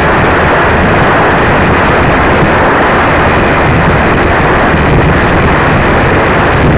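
Loud, steady rush of airflow and propeller noise picked up by the onboard camera of a ParkZone T-28 electric RC plane in flight, with a faint low motor hum underneath.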